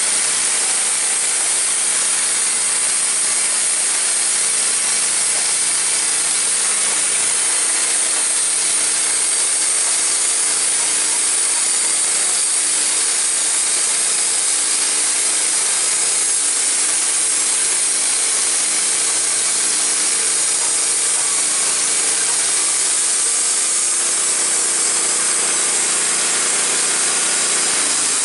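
Wood-Mizer LT15 band sawmill cutting a white oak log: its gas engine runs steadily under load as the band blade saws through the wood.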